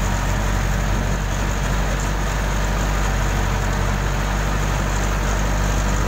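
Case K-series backhoe loader's diesel engine running steadily as the machine drives along a dirt road.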